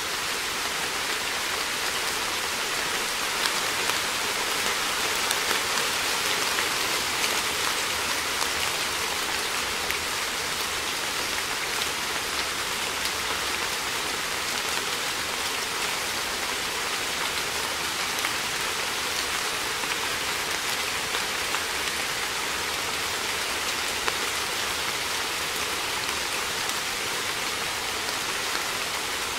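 Steady rainfall: an even hiss of rain with scattered small drop ticks.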